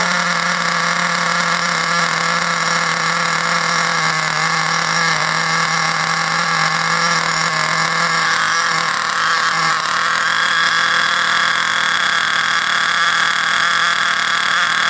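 Ansmann BigBlock .28 two-stroke nitro glow engine running steadily while being broken in on its first tank of fuel. It holds an even pitch, which rises a little and gets slightly louder about ten seconds in.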